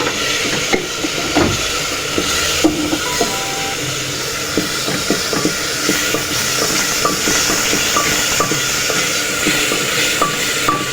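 Onion and spice masala frying in hot oil in the pot: a steady sizzle with many small crackles and clicks as it is stirred.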